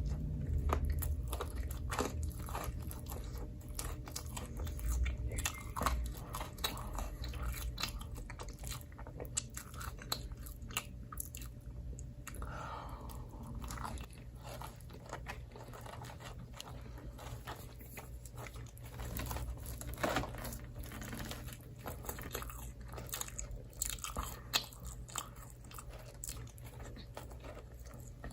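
Close-miked biting and chewing of microwave pizza, with irregular crunches and wet mouth clicks.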